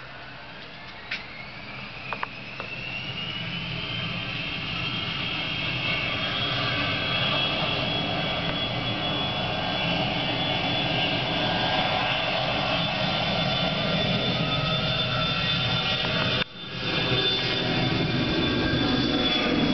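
Twin turbofan engines of a Bombardier CRJ200 regional jet spooling up: a whine rises in pitch over the first several seconds, then holds steady while the engine noise grows louder as the jet rolls down the runway, consistent with a takeoff roll. The sound briefly cuts out about sixteen seconds in.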